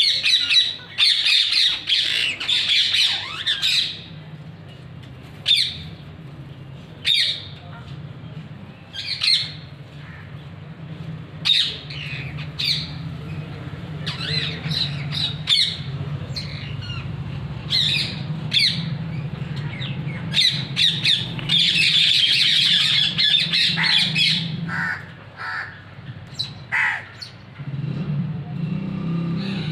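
Parrots squawking and chattering in harsh, short calls, with dense flurries at the start and again about two-thirds of the way through, over a steady low hum.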